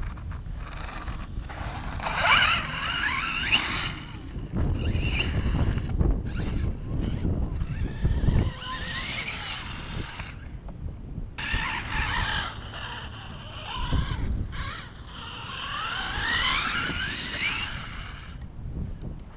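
Radio-controlled off-road buggy's motor whining up in pitch as it accelerates, three times, as it is driven over dirt jumps. Low wind rumble on the microphone runs underneath.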